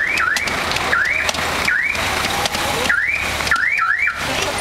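Police motorcycle siren giving short, rising whoops, about seven in irregular clusters, each sweeping up in pitch and dropping back sharply.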